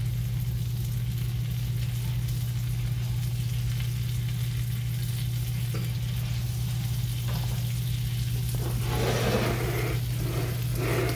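Buttered buns sizzling as they toast in a hot nonstick frying pan, over a steady low hum. Near the end the sizzle swells, louder and rustling, for about two seconds.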